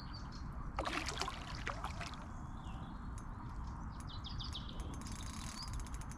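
Quiet outdoor background noise with a short run of small bird chirps about four seconds in, and scattered handling clicks and rustles.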